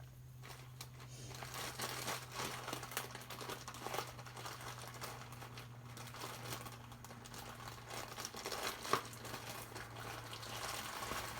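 Plastic bag of bead strands crinkling and rustling as it is handled and opened, with small scattered clicks, over a steady low hum.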